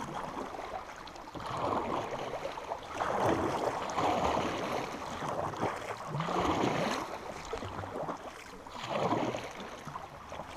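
Kayak paddle strokes splashing in a fast-flowing creek: several swishing surges a couple of seconds apart over the steady rush of the current.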